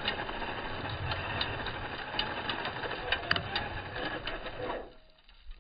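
Radio-controlled formula offroad buggy whirring at full throttle as its tyres spin in loose dirt and fling gravel on a steep climb, with scattered clicks of stones. The noise drops away sharply near the end.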